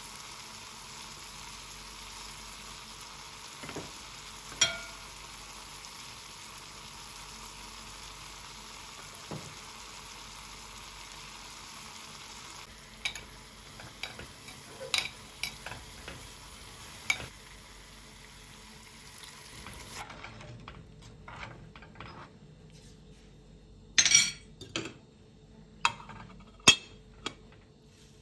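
Food sizzling as it fries in a pan while being stirred, with occasional sharp clinks of cookware. About two-thirds of the way through the sizzle stops, leaving a few loud clinks and knocks of pots and utensils.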